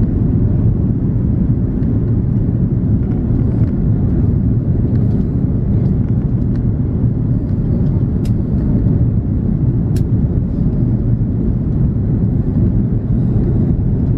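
Cabin noise inside a four-engined Airbus A340-300 airliner on approach: a steady, even low rumble of engines and rushing air.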